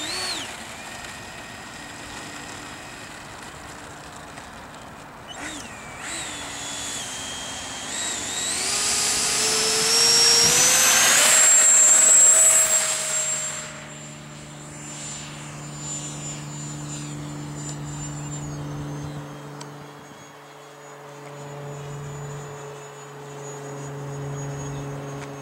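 Electric ducted-fan motor of a 70 mm RC Hawk jet on a 6S battery: a steady whine at low throttle. About eight seconds in, the whine rises in pitch and grows loud as it throttles up for the takeoff run. It drops off sharply about fourteen seconds in and carries on as a steadier, fainter whine that swells and fades as the jet flies overhead.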